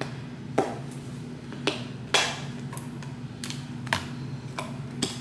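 Scattered clicks and knocks of bath-product containers being handled and set down, about seven in all, the loudest just after two seconds in with a brief scrape after it, over a steady low hum.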